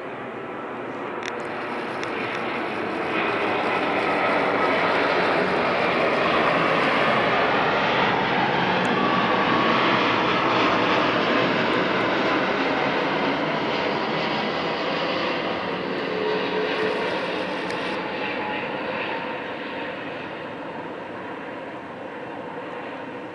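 Boeing 787-8 Dreamliner on landing approach with gear down, its GEnx-1B turbofan engines' jet noise swelling as it comes over, loudest about a third of the way in, then slowly fading as it flies on toward the runway.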